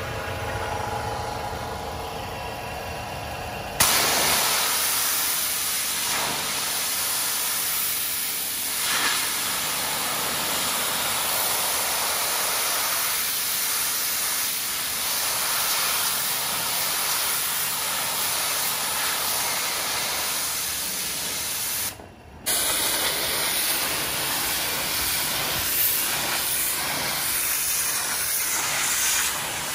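Promac M36 three-phase electric pressure washer running with a steady hum, then about four seconds in the high-pressure jet cuts in with a sudden loud hiss as it sprays a fan of water onto concrete. Near the end the spray stops for about half a second and then starts again.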